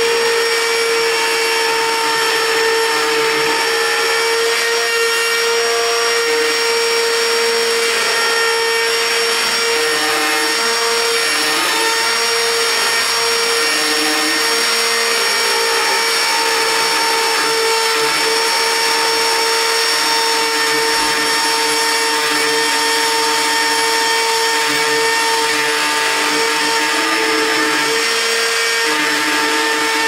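Ryobi cordless trim router running at speed with a steady whine, its bit cutting a shallow hinge mortise into the wooden edge of a door.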